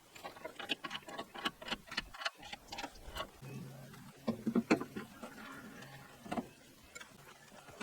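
Irregular light clicks and clinks of metal hardware and hand tools (nuts, washers and bolts being handled and fitted) while bolting a portable sawmill together, with a louder cluster of knocks a little past halfway.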